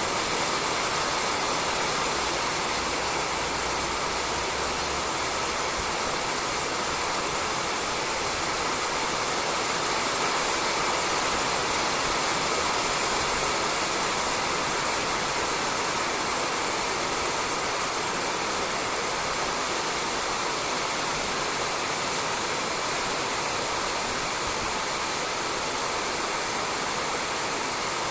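Steady rain falling on a roof, an even, unbroken patter.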